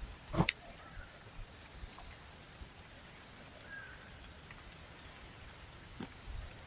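Quiet outdoor ambience with brief, high-pitched bird chirps scattered throughout, broken by a sharp knock about half a second in and a smaller one near the end.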